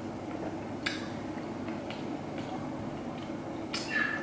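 A person sipping soup from a metal spoon: a few small clicks and a short slurp near the end, over a steady low hum.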